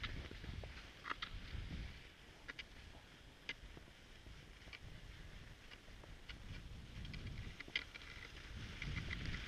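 Cross-country skis sliding along a snowy trail, with scattered sharp clicks over a low, uneven rumble that is louder near the start and end.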